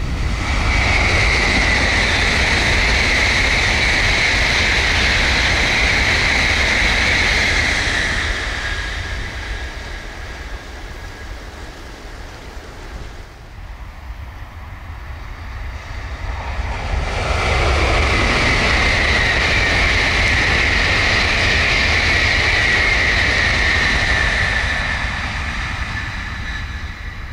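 Tokaido Shinkansen N700-series bullet trains passing at high speed, two in a row. The first pass is a loud rushing roar of about eight seconds that dies away. The second builds up just past the middle and fades near the end.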